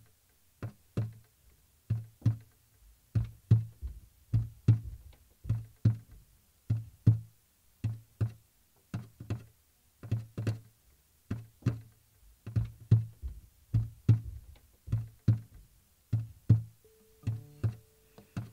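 Plucked guitar music: a repeating pattern of low picked notes, about two a second, with a steady higher note joining near the end.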